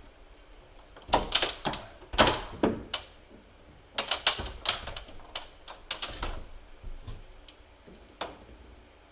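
Quick rattly clicks and crackles of PTFE pipe thread tape being pulled off its roll and wrapped around the threaded end of a shower arm, in two bouts and then a last click near the end.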